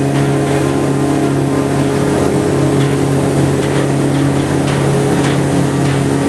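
Small ferry boat's engine running at a steady cruise, a constant low drone, with water rushing along the hull.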